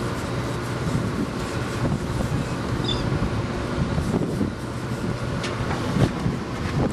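Steady low drone of a sportfishing boat's engine, with wind on the microphone and a few light knocks in the second half.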